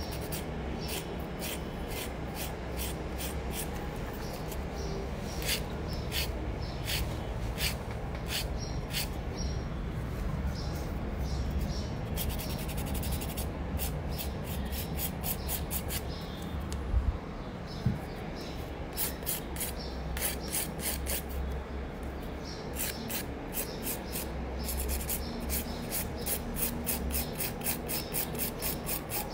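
Hand nail file rasping over a gel nail extension in repeated back-and-forth strokes. The strokes come quicker and more evenly in the second half.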